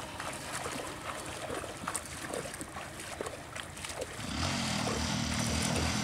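Water sloshing and splashing in uneven strokes as a person wades through shallow river water. About four seconds in, the steady hum of an engine comes in underneath.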